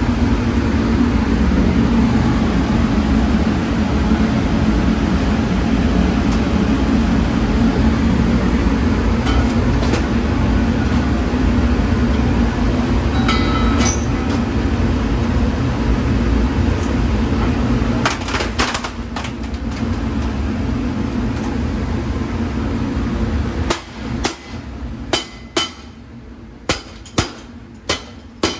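Chain-driven LCD/LED TV screen splitting machine running with a loud, steady mechanical drone, with a few metal clanks a little past the middle. Near the end the machine noise drops and a hammer lands about seven sharp blows in quick succession.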